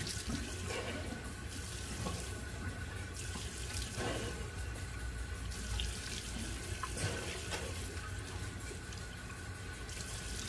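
Bathroom tap running while shaving soap is rinsed off the face, with occasional splashes of water.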